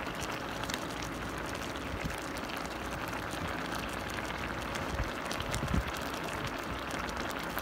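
Chicken adobo sauce boiling hard in an open pot: steady bubbling with many fine pops as the sauce reduces to a thick, sticky glaze.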